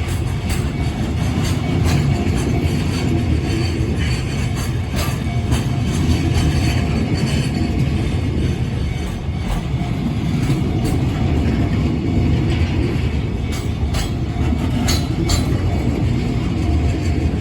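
Freight train wagons rolling past, a steady heavy rumble with repeated clicking and clacking as the wheels cross the rail joints.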